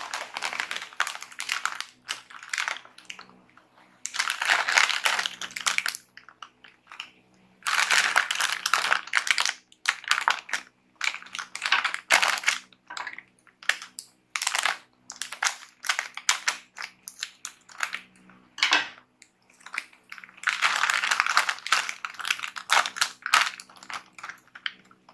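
Foil-lined plastic bag of tortilla chips crinkling and crackling as hands handle it, tear it open and pull it wide, in repeated bursts of a second or more with short pauses between.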